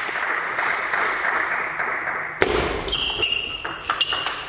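A steady rushing noise for the first half, then a table tennis rally: the plastic ball clicks sharply off the bats and the table about six times, several of the hits with a short high ping.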